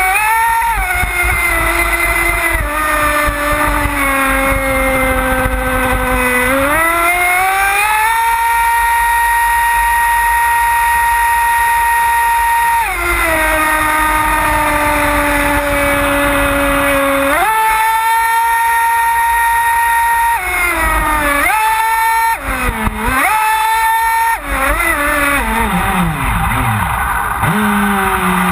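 Pro Boat Voracity RC boat's brushless electric motor whining under load, with spray hissing. The pitch holds steady at high throttle, drops and climbs again as the throttle is eased and reapplied, dips and rises quickly several times later on, and falls near the end.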